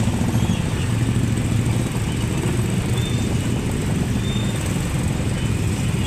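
Vehicle engine running steadily amid road traffic, a continuous low rumble with road noise.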